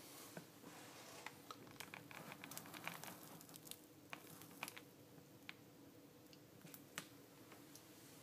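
Near silence with a faint steady hum and many small faint clicks and ticks, packed together between about one and five seconds in and sparser after that.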